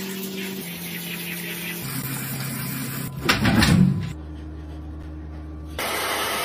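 A wet Akita shaking water from its coat in a bathtub, a loud burst of noise about three seconds in, over a steady mechanical hum; near the end a hair dryer starts running steadily.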